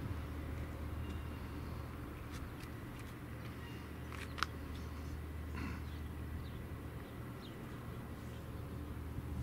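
Outdoor ambience at the canyon rim: a steady low hum with faint, scattered short bird chirps and one sharp click about four and a half seconds in.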